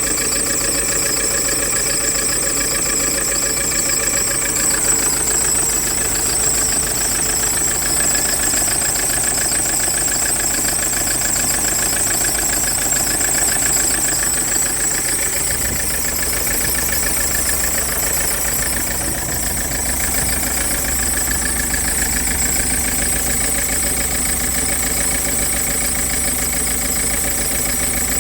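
Misfiring diesel engine idling with a knock, with a steady high-pitched whine over it.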